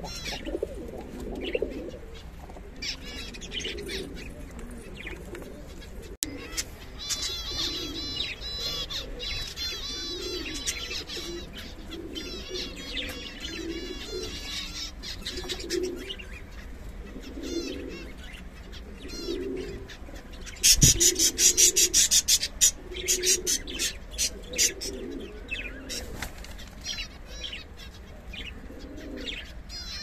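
Domestic pigeons cooing over and over, mixed with high chirping from small cage birds. About two-thirds of the way through come louder bursts of rapid, evenly spaced high-pitched chatter.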